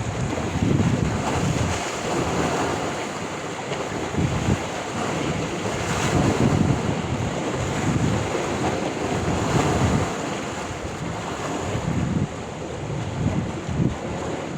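Sea waves washing onto the shore in a steady surf, with wind buffeting the microphone in irregular low gusts.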